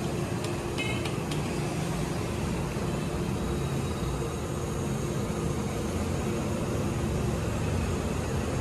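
Steady street background noise with traffic rumble, and a few short high-pitched ticks about a second in.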